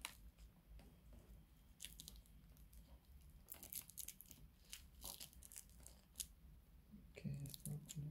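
Faint handling noise of a helmet intercom earpiece being worked by hand while a microphone is fitted into it: scattered small clicks, scrapes and rustles of plastic and foam parts.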